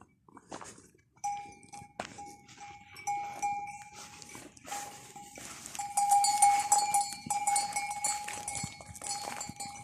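A livestock bell ringing over and over, a steady pulsing tone that starts about a second in, with scattered sharp knocks around it.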